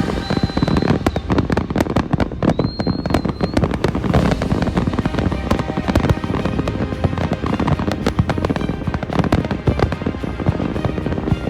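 Fireworks display: a dense, continuous barrage of bangs and crackling, with a high whistle heard twice in the first few seconds.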